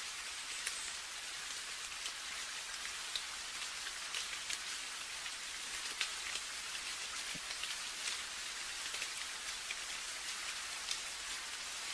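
Steady rain, a constant hiss with many distinct drops pattering close by, a few of them sharper than the rest.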